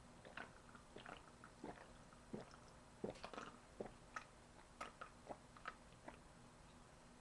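A person gulping soda from a can: soft, click-like swallows at an irregular pace, about one or two a second, faint against room tone.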